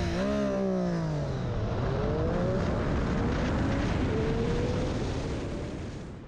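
Triumph Street Triple 765 R's three-cylinder engine accelerating hard from a standstill to about 100 km/h, its pitch climbing in several rising sweeps as it pulls through the gears over a rush of wind noise. It fades out near the end.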